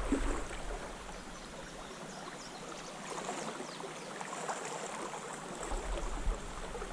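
Shallow river water flowing over rocks and riffles: a steady wash of moving water.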